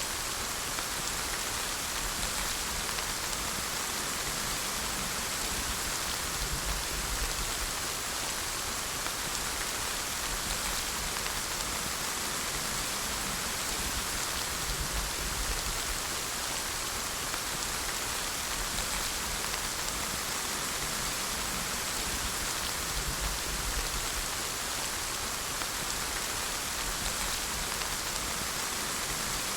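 Steady rain falling, an even hiss of drops on surfaces with a faint low rumble underneath.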